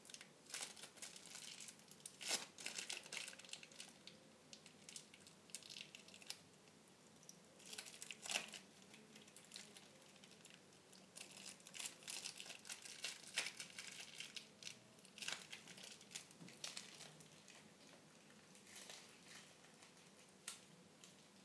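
Packaging being handled and unwrapped: faint, irregular crinkling and rustling with scattered sharp clicks and taps.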